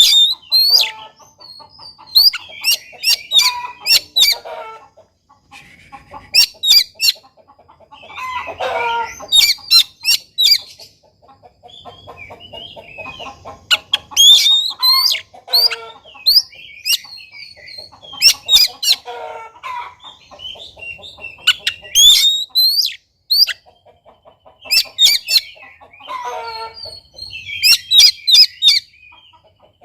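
Oriental magpie-robin (kacer) singing in repeated loud phrases: quick, sharp high whistles mixed with harsher, lower chattering notes, a new phrase every two to three seconds.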